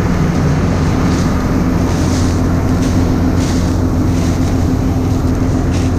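Diesel engine of farm harvest machinery running steadily, a constant low drone.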